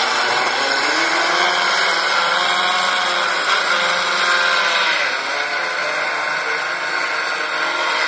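Electric motors of radio-controlled model boats running on the water, a whine that rises and falls in pitch with the throttle, over a steady high hiss.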